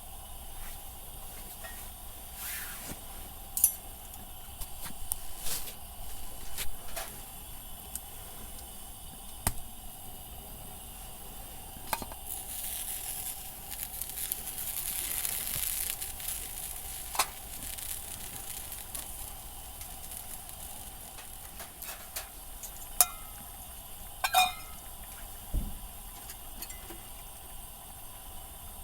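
Cooking and tableware sounds: a hot pan or pot sizzles, with a hiss that swells and fades midway, amid scattered clinks and knocks of dishes and utensils.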